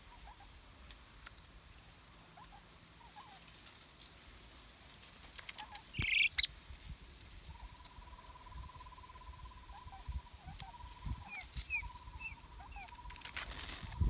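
Wild birds calling: faint short calls at first, a loud harsh burst about six seconds in, then a long, even, fairly low trill from about seven and a half seconds on that breaks into shorter trills. A few short high chirps sound over it near the end, and a brief rush of noise comes just before the end.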